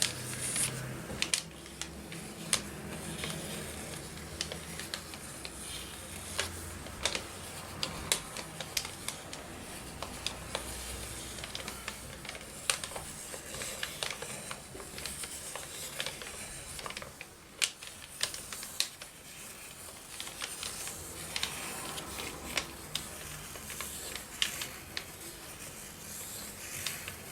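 Irregular light clicks and taps with paper handling: pens and paper being worked at a craft table.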